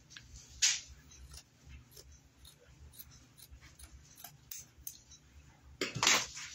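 Scissors cutting through burlap fabric: short, crisp snips and cloth rustling, with a louder brief noise about a second in and another near the end.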